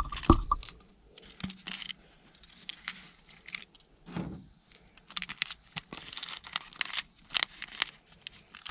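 Small fishing-kit items, a hook among them, being pushed down into a pop bottle: irregular clicks, taps and small rattles with some crinkling, and a couple of louder knocks at the start.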